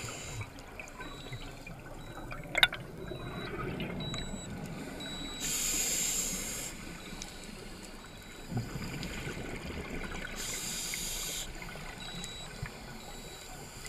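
Scuba diver breathing through a regulator, heard underwater: a hissing inhale three times, about every five seconds, with low bubbling exhales between them. There is a single sharp click a few seconds in.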